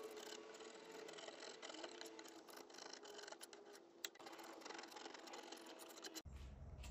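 Paint scraper dragging over a pine dresser top, scraping up softened paint and stripper: a quiet rasping with many small clicks. Near the end the sound cuts abruptly to a low steady rumble.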